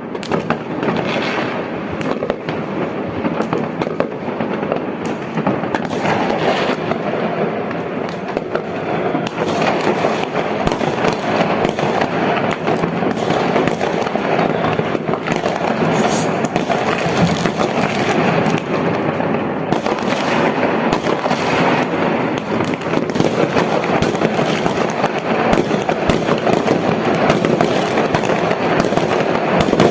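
Fireworks going off nonstop: a dense, continuous barrage of overlapping bangs and crackling with no pause.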